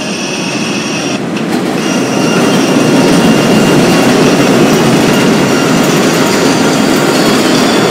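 Subway train running past on an elevated steel structure: a loud, dense rumble of wheels on rail that builds over the first two seconds and then holds, with thin high wheel-squeal tones above it.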